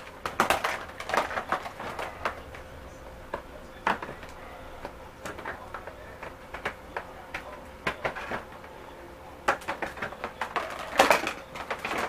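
Hard plastic storage-tote lid being handled and pressed onto the tub, with pieces worked into holes cut in it: irregular clicks, knocks and rattles of plastic, bunched about half a second in and again near the end.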